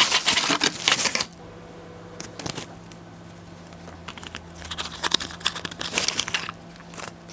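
Packaging being handled and unwrapped, crinkling and rustling loudly for about the first second, stopping suddenly, then crinkling again for a couple of seconds in the second half.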